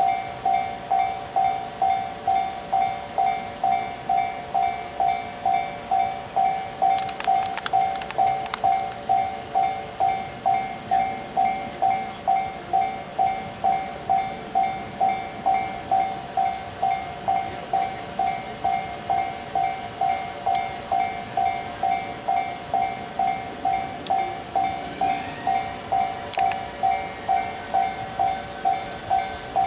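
Japanese level-crossing warning bell ringing steadily, a pitched electronic 'kan-kan' repeating about twice a second: the crossing is closed for an approaching or passing train. A few sharp clicks sound about seven to eight seconds in.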